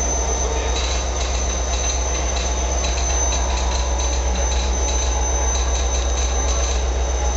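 Model train running along a layout's track, a steady whir of its motor and wheels on the rails.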